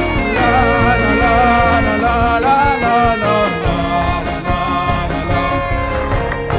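Live worship band music: a wavering melody line with vibrato rides over sustained chords and a steady bass.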